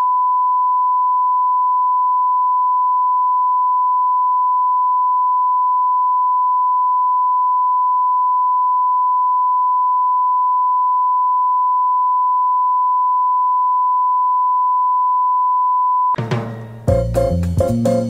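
Steady 1 kHz line-up test tone, a single pure beep held for about sixteen seconds before cutting off abruptly. Music with drums and bass starts right after.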